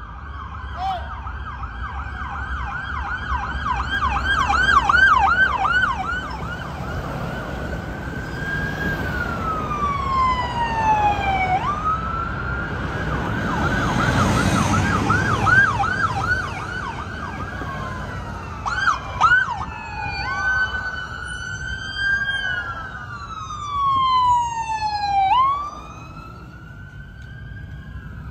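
Police escort sirens of a motorcade, several sounding at once, switching between a slow rising and falling wail and a fast yelp of about four pulses a second. A vehicle rushes past about halfway through.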